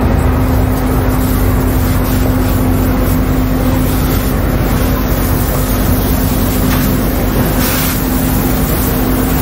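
Fire engine running at a burning building as firefighters work a hose: a loud, steady engine drone with a constant low hum under a rushing noise, and a brief hiss about eight seconds in.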